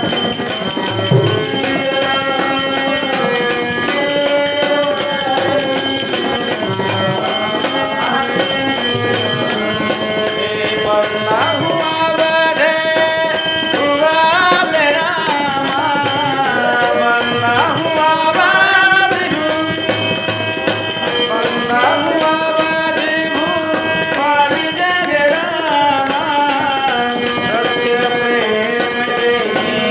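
Harmonium playing a bhajan melody, with a shaken rattle or jingle percussion keeping time.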